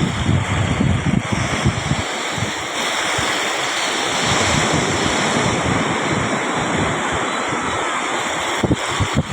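Sea surf washing onto the beach in a steady hiss, with wind buffeting the microphone for the first two seconds and again near the end.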